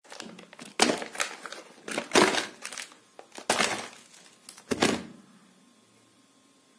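Plastic snack wrappers crinkling as chocolate and biscuit packets are set down on a cloth-covered surface one after another: four sharp bursts of crinkling, a little over a second apart.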